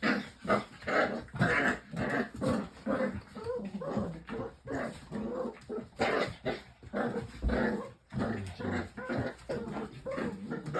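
Two dogs play-fighting, growling and making short yips and whines in quick repeated bursts, several a second; it is rough play, not a real fight.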